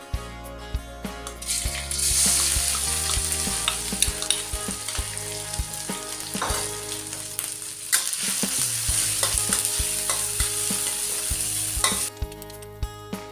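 Food sizzling in hot oil in a pan, starting about a second and a half in and cutting off about a second before the end, over background music with a steady beat.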